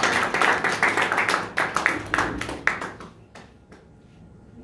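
A small group clapping, dense at first, then thinning to a few scattered claps that stop about three and a half seconds in.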